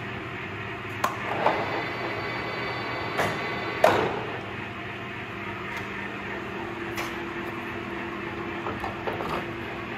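A handful of sharp metal clanks, the loudest about four seconds in, as the controls of a Clausing Colchester Mastiff 1400 gear-head lathe are worked, with a few lighter knocks later on. Under them is a steady machine hum.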